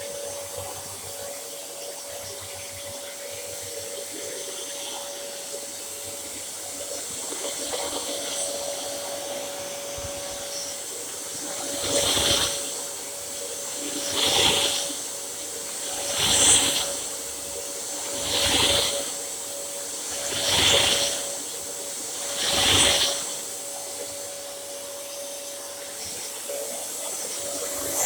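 Dyson DC07 bagless upright vacuum cleaner running with a steady motor whine and a rush of air. About halfway in, the rush swells six times, about two seconds apart, as the cleaner is pushed back and forth over the floor.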